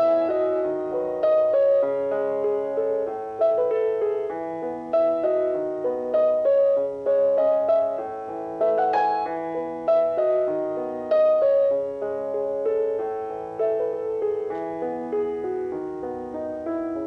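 Background music: a slow solo piano piece, notes and chords struck and left to ring.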